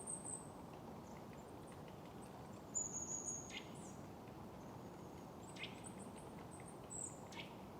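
Small birds giving thin, very high-pitched calls, several short calls scattered through, some gliding down in pitch, over a faint steady hiss.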